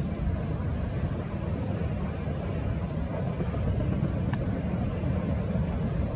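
A Boeing 737 airliner's jet engines heard from a distance as a steady low rumble while it rolls out on the runway just after touchdown.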